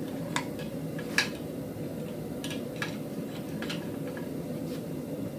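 A handful of sharp metallic clinks as steel tongs and the cooled forged piece knock against the jaws of a vise, the loudest about a second in, over a steady low hum.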